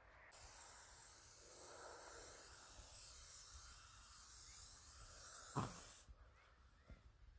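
Faint, steady hiss with one short knock a little before the end.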